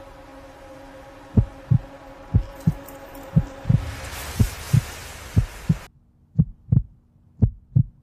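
Heartbeat sound effect, double lub-dub thumps about once a second, starting about a second and a half in. It plays over a sustained music drone that swells with a hiss and cuts off suddenly about six seconds in, leaving the heartbeat over a faint hum.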